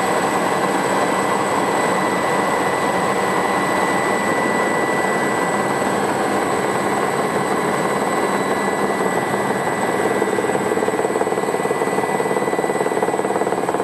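Aerospatiale Alouette II SA318C helicopter in flight, heard from inside the cockpit: the steady high whine of its Turbomeca Astazou turboshaft over the dense rush and quick, even beat of the main rotor. About ten seconds in the sound grows a little fuller in its middle range.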